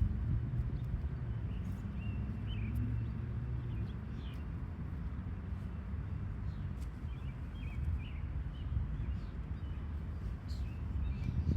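Outdoor background: a steady low rumble with a few short, faint bird chirps scattered through it.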